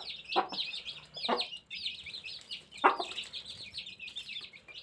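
A brood of baby chicks peeping constantly with quick, high chirps while they feed, and a hen among them clucking a few short times, loudest about three seconds in.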